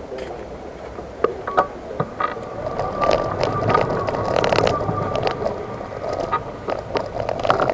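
Electric wheelchair driving over rough paving: a steady high motor whine with rattling and scraping from the wheels, loudest in the middle stretch.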